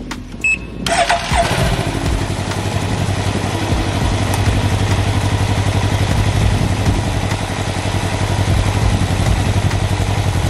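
Can-Am Ryker three-wheeler's engine starting about a second in, after a few clicks and a short beep, then idling steadily.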